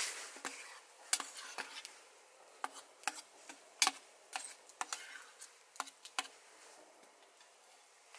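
A metal spoon scraping and clinking against the inside of a stainless steel camp pot as food is stirred and scooped out, in irregular sharp clicks and taps.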